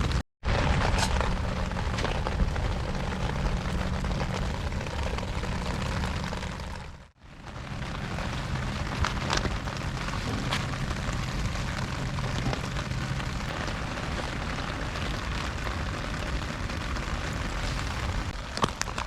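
Wood fire burning in a small solo fire stand, with faint scattered crackles over a steady low rumble like wind on the microphone. The sound drops out abruptly twice, very briefly just after the start and about seven seconds in.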